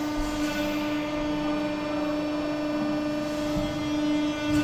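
Hydraulic pump unit of a 640-tonne, 12-metre tandem press brake running, a steady, even-pitched machine hum.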